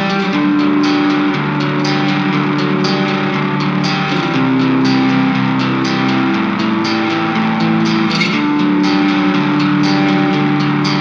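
Background music led by guitar, with sustained notes and a steady beat.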